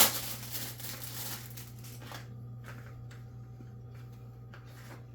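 A sharp plastic click, then rustling and handling of the plastic parts of a canister filter's UV light being fitted together, easing into a few light clicks over a steady low hum.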